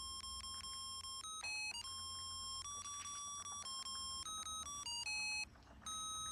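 A Christmas-light melody chip playing a tune through a small piezo buzzer disc: a string of thin electronic beeping notes, each held steady and stepping up and down in pitch. The tune breaks off briefly about five and a half seconds in.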